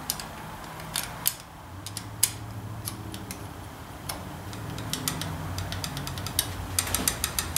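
Light, irregular metallic clicks and taps from a loose tube being moved by hand in its mounting hole on a Ford 800 tractor engine, bunching into a quick run of clicks near the end, over a faint low hum. The owner suspects this loose tube is behind the engine's tapping noise.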